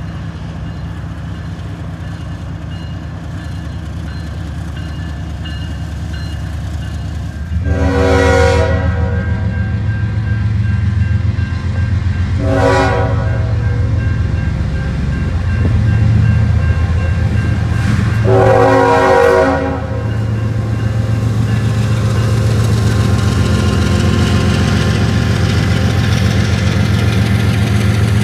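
CSX diesel freight locomotive running under power, its chime horn sounding three times: long, short, then long. The engine's low rumble grows louder as the locomotive comes past close by.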